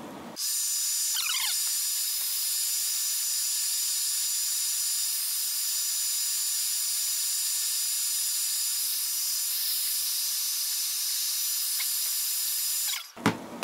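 Electric hot-air blower running steadily to heat the iPad's glass and soften the digitizer adhesive, a loud hiss with a high whine. It switches on about half a second in and cuts off near the end, followed by a sharp click.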